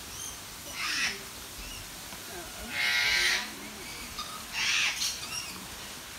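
Bird squawking: three loud, harsh calls about two seconds apart, the middle one the longest and most rasping. Faint chirps of smaller birds sound between them.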